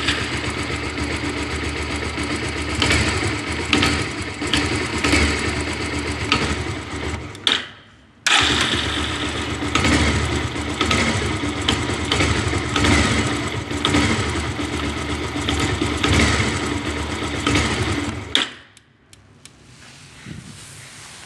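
Bajaj Pulsar 180's single-cylinder four-stroke engine running at low revs with small throttle blips, making an odd noise that the owner hears when opening the throttle only slightly and can't identify. The sound breaks off briefly about eight seconds in, resumes at once, and stops about three seconds before the end.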